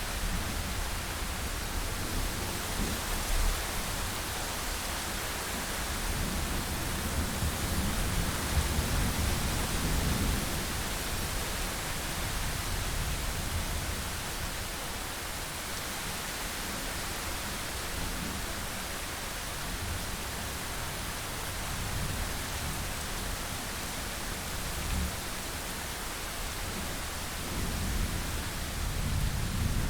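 Steady rain falling as an even hiss, with a low rumble rising and falling beneath it, strongest about eight to ten seconds in and again near the end.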